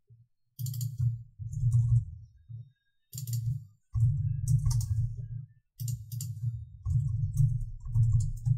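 Typing on a computer keyboard in several short bursts separated by brief pauses, each keystroke a low thud with a crisp click.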